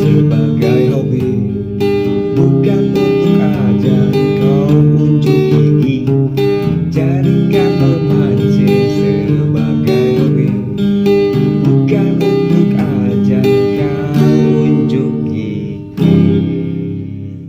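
Background music of strummed acoustic guitar chords, ending on a last chord about sixteen seconds in that rings out and fades.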